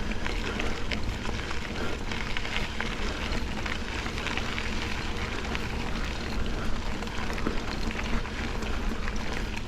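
Mountain bike rolling along a dirt double-track trail: a steady rumble of tyres and wind noise on the microphone, with many small clicks and rattles from the bike over the rough ground.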